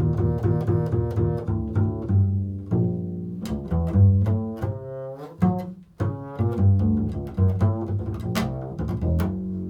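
Bass played solo in an improvised line: a run of plucked low notes with sharp attacks, some sliding in pitch, broken by a short pause a little after halfway.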